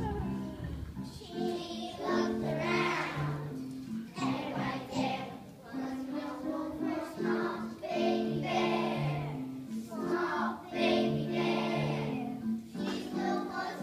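A group of young children singing a song together over instrumental accompaniment.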